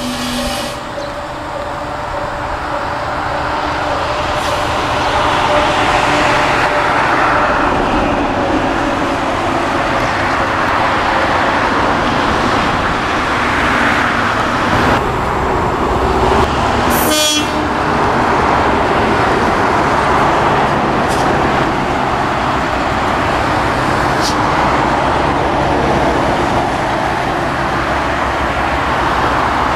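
Moka Railway diesel railcar's engine running hard as it pulls away from the station, building up over the first few seconds and then holding with slow swells in power. One brief sharp sound cuts through about halfway through.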